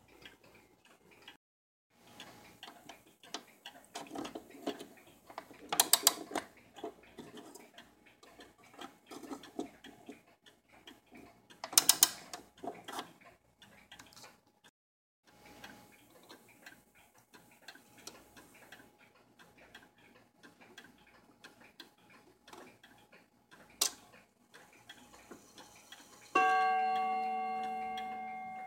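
Antique c.1876 HAC Vienna wall clock movement ticking steadily as its pendulum swings, with two louder handling noises along the way. Near the end the clock strikes once on its gong, a ringing tone that slowly dies away.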